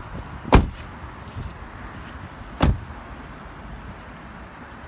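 The doors of a 2016 Toyota Camry being shut twice, about two seconds apart, each a single sharp impact, the first the louder.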